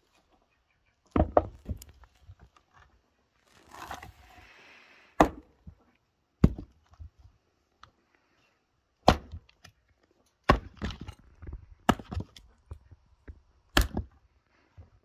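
An axe chopping and splitting firewood on a chopping stump. There are about seven sharp chops a second or more apart, with smaller knocks of wood between them.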